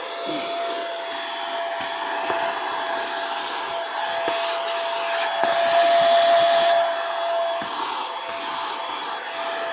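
SHLNLI cordless handheld vacuum cleaner running steadily on its single high speed: a constant motor whine over the rush of air.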